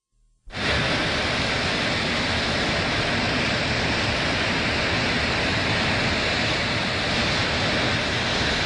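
Steady rushing roar of a large fire burning, a film sound effect. It cuts in abruptly about half a second in and holds at an even level.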